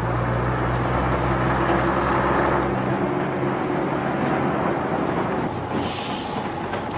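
Motor vehicle engine running with a steady low hum that drops away about three seconds in, leaving a steady rushing noise with a brief hiss about six seconds in.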